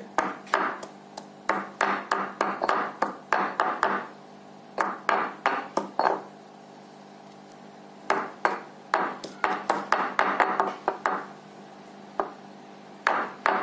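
Pestle pounding nalleru (Cissus quadrangularis) stems in a stone rolu mortar, crushing them to a fibrous pulp for their juice. The knocks come at about three a second in four bursts, with short pauses between them.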